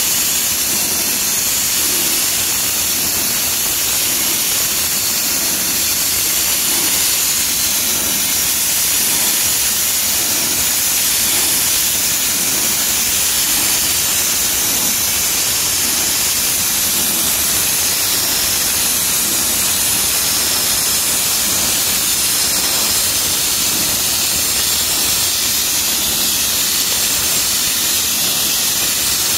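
Sandblasting nozzle blasting abrasive onto a granite kerb, a steady hiss without a break, giving the stone its sandblasted finish.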